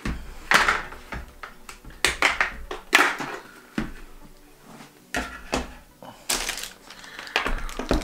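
Hard plastic clicks and knocks as a replacement visor is handled and fitted onto a motorcycle helmet: about a dozen irregular sharp taps with short scuffs between them.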